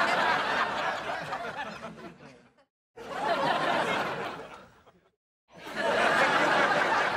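Sitcom laugh track: three separate bursts of studio-audience laughter, each starting quickly and fading away. They are cut apart by short gaps of dead silence about two and a half and five seconds in.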